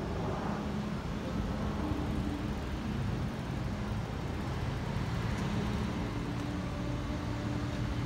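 Steady low rumble of city road traffic, with low engine hums held for a second or two over it.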